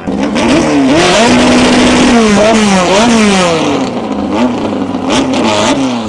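Modified VW Beetle drag car's engine revving hard, its pitch rising and dropping several times in quick swings.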